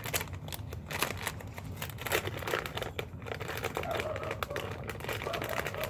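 Irregular crinkling and rustling as small cut-up paper pieces are handled and added as mix-ins for slime.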